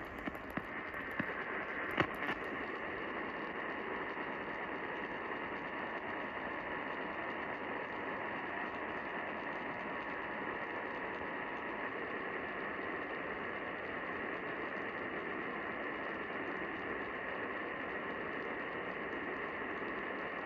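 AM radio tuned to a weak, distant station: steady static hiss with no programme coming through. A faint steady whistle runs under the hiss and stops about halfway through, and there is a click about two seconds in.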